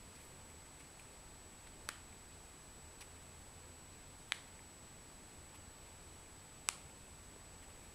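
Three sharp clicks about two and a half seconds apart over a faint steady hiss with a thin high whine: button presses on the LED bulb's remote control, each one switching the bulb's colour.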